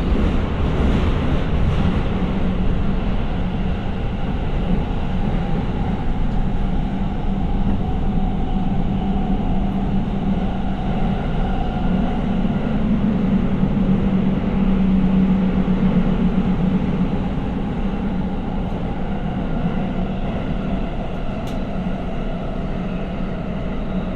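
Subway train running, heard from inside the car: a steady rumble under a low hum that grows louder around the middle and then eases off.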